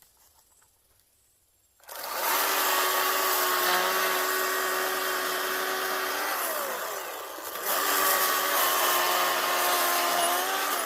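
Ryobi ONE+ 18V HP brushless 10-inch battery chainsaw starting about two seconds in and cutting a notch into a tree trunk with a steady motor whine. About four seconds later it winds down in pitch briefly, then speeds up again and keeps cutting.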